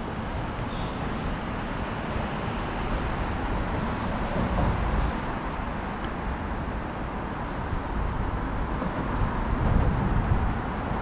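Wind rushing over the microphone of a camera moving along a paved road, with a low rolling rumble that grows louder near the end.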